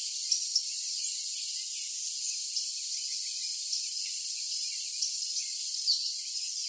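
Crickets trilling steadily, with scattered short songbird chirps over them and one brighter chirp just before the end. Everything sits high, with no low end at all.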